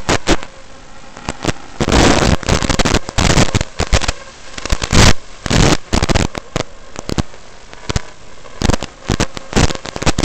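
Analog FPV video receiver static: a steady hiss broken by loud crackling bursts where the video signal breaks up, heaviest in a long stretch about two seconds in and again around five seconds.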